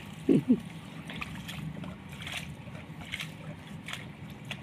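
A short vocal sound from a child, then faint scrapes and taps as a large plastic basin is tipped and rolled on wet concrete, over a low steady hum.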